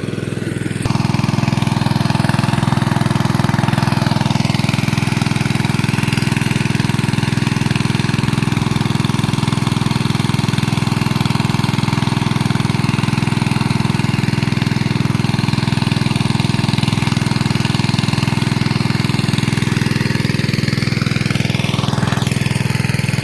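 An engine running steadily at an even speed. It gets louder about a second in.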